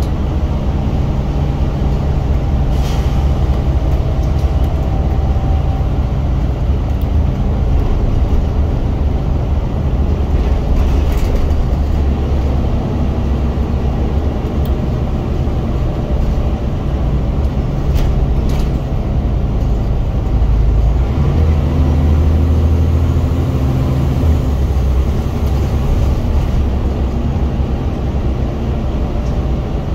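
Scania single-deck bus engine heard from the rear seats inside the saloon, working hard under way (a "thrash"). The revs shift now and then, most noticeably a little after twenty seconds in. A few short rattles sound over the engine.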